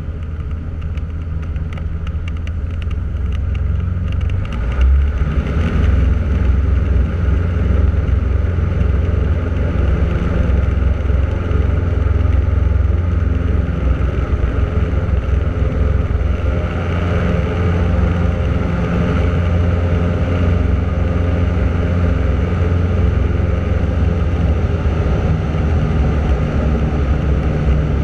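Cessna 150's four-cylinder Continental O-200 engine and propeller droning at takeoff power through the takeoff roll and lift-off, heard inside the small cabin. The drone grows louder about four to five seconds in, then holds steady.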